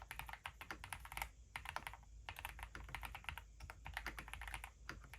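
Fast, continuous typing on a Tiger 80 Lite mechanical keyboard fitted with Haimu Midnight switches and CMK Classic Blue keycaps: a steady patter of key clacks, with brief pauses a little over a second in and again around two seconds in.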